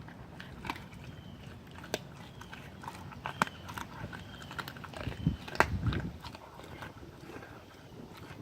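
German shepherd puppy chewing raw meat and bone, with irregular wet crunches and cracks, the heaviest crunching about five to six seconds in.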